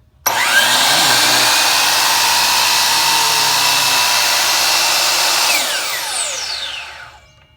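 DeWalt DWS779 12-inch sliding miter saw's 15-amp motor starting suddenly and spinning the blade with no load, a loud steady rush with a whine. About five seconds in it is released and the electric brake stops the blade fast, the whine falling steeply and dying away over about a second and a half.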